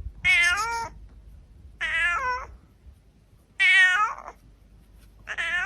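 Domestic cat meowing four times, each meow about half a second long, in answer to its owner calling its name.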